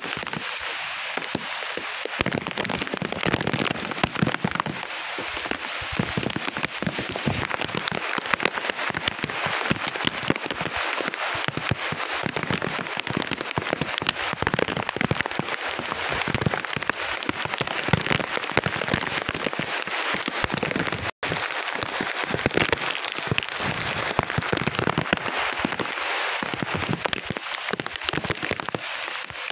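Typhoon rain and wind: heavy rain pelting down in a dense crackle of drops, with irregular gusts buffeting the microphone. The sound cuts out for a split second about two-thirds of the way through.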